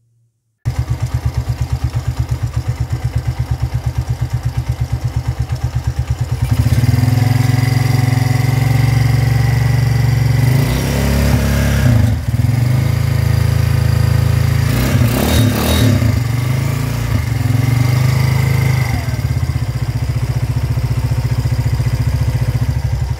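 Engine with a newly fitted timing chain tensioner idling, then revved about six seconds in and held higher with several rises and falls in pitch, settling back to idle near the end.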